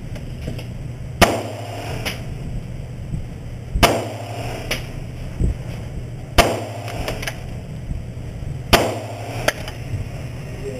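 Walther pistol fired four single shots, spaced about two and a half seconds apart, each ringing out briefly, with fainter cracks between them over a steady low hum.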